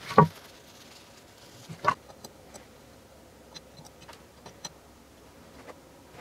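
Workshop handling sounds at a workbench: a sharp knock of a part set down just after the start and another about two seconds in, then a scatter of faint light clicks and ticks from a small hand tool working on a machined aluminium engine crankcase.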